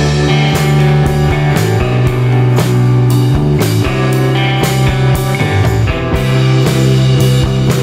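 Rock music with guitar and drums, a steady beat throughout.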